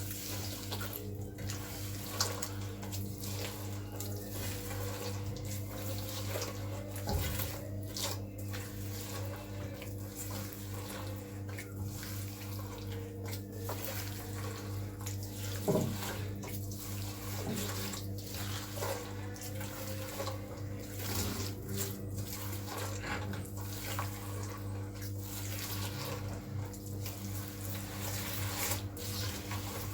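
Electric hand mixer running steadily as it beats butter, sugar and oil together in a bowl.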